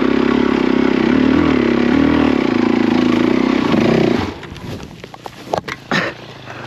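Suzuki DR-Z400's single-cylinder four-stroke engine running with small rises and dips in pitch, then cutting out abruptly about four seconds in. A few knocks and clicks follow.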